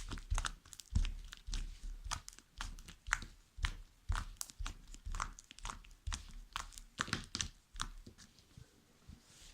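Slime being squeezed and stretched by hand, making irregular clicks and small pops, a few a second, as air bubbles in it burst.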